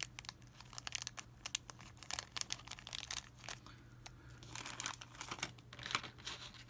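Small clear plastic zip-lock bags of model kit parts crinkling as they are picked up and handled, with irregular crackles throughout.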